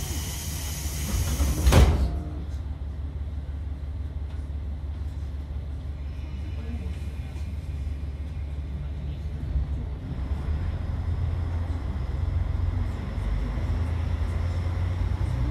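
Diesel railcar: a hiss of air cut off by a single heavy thud about two seconds in, typical of pneumatic doors closing, then the diesel engine's low steady rumble, which grows a little louder near the end.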